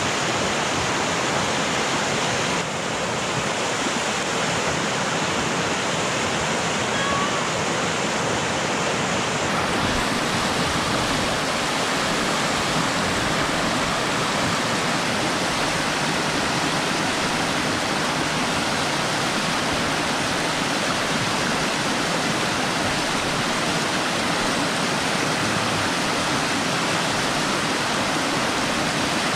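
Steady rush of whitewater pouring through a river standing wave. Its tone shifts slightly about three and ten seconds in.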